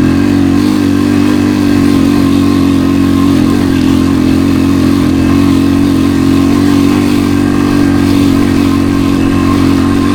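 Small motor vehicle engine, such as a motorbike or ATV engine, running loud and steady at one unchanging pitch.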